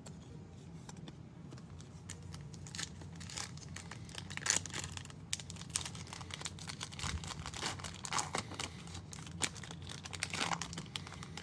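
Irregular crinkling and crackling of clear plastic card holders and a foil trading-card pack wrapper as they are handled and the pack is torn open.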